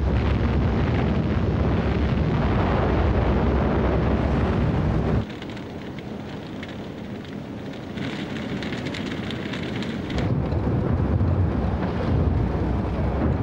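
War sound effects: a loud, dense rumble of bombardment and aircraft that cuts off suddenly about five seconds in, then a quieter rumble of distant explosions with some crackling.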